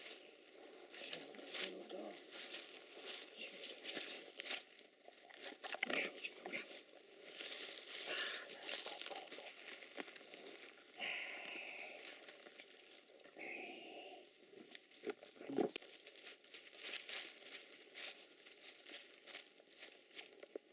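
Rustling and crackling of dry leaf litter and undergrowth, with irregular crunches and brushing of leaves as someone moves through the woodland ground cover.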